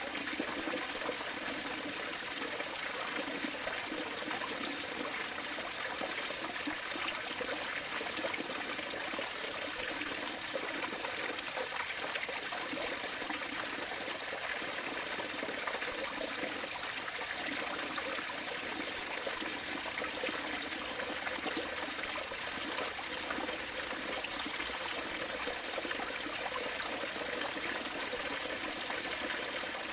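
Steady sound of running water, like a stream trickling, with no breaks or changes.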